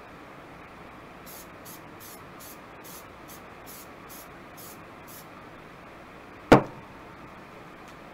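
Aerosol spray-paint can fired in a quick series of short hisses, about a dozen brief bursts, laying light coats of paint over a twig stencil. A single sharp knock follows near the end.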